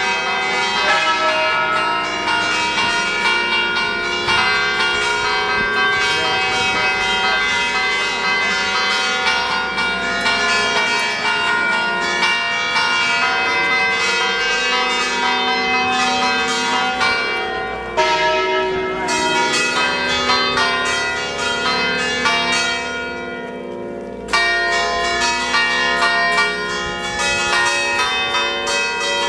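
Several church bells in a bell tower ringing together, rung solemnly to call the faithful into Mass. The strokes overlap continuously with long ringing tones. About two-thirds of the way through the ringing thins and fades a little, then a loud stroke brings it back to full strength.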